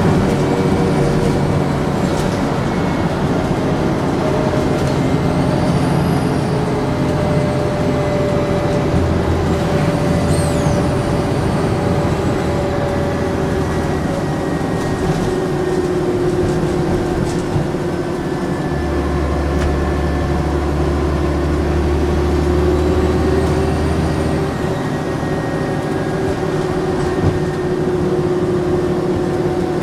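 Volvo Olympian double-decker bus engine running under way, its turbocharger whistling: a high whistle swells and fades a few times over the steady engine sound.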